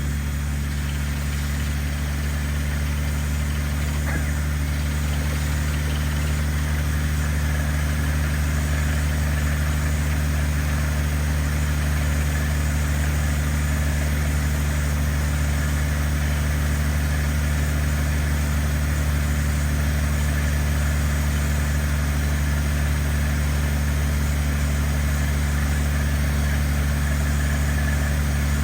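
An engine running steadily at a constant speed, with an even low hum that does not change.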